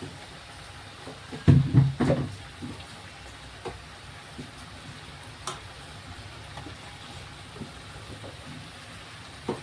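Okra frying in a pan, with a cluster of loud utensil knocks against the pan about one and a half to two seconds in and a few lighter clicks after.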